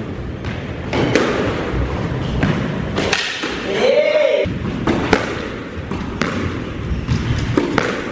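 A squash rally: the ball is struck by rackets and smacks off the court walls and floor in sharp hits at irregular intervals, roughly one a second.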